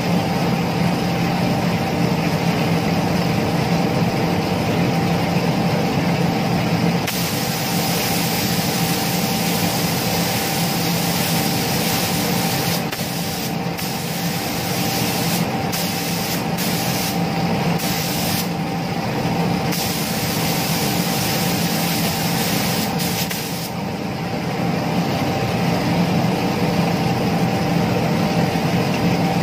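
Gravity-feed paint spray gun hissing as clear coat is sprayed onto motorcycle body panels in long passes, the hiss cutting off briefly several times when the trigger is released. A steady machine hum runs underneath.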